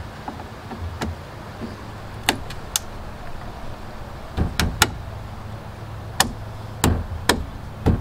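Sharp clicks and knocks, about a dozen scattered and partly in quick groups, as a plastic boat charger plug inlet is pushed and worked into a tight-fitting hole in the console panel.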